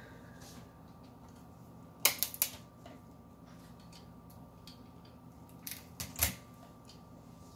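Metal shears snipping through a sail catfish's spines: short clusters of sharp clicks about two seconds in and again near six seconds in, over a faint steady hum.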